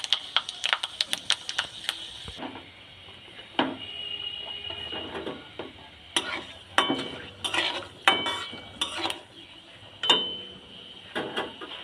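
Panch phoron seeds spluttering in hot mustard oil in a kadai: a quick run of crackling pops over the first couple of seconds, settling into a sizzle. From about six seconds in, a spatula scrapes and clinks against the kadai as it stirs the spices.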